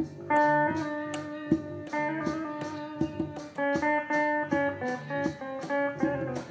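Conga drums struck by hand in a steady rhythm, played along with guitar music.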